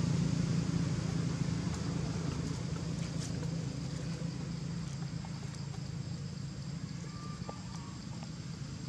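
A low, steady motor hum, slowly growing fainter.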